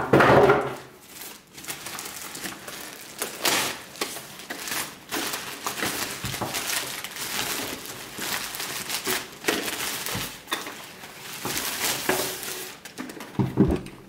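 Thin plastic packaging bag crinkling and rustling in irregular bursts as it is pulled off a robot vacuum cleaner. Near the end there are a couple of dull thumps as the robot is set down on the table.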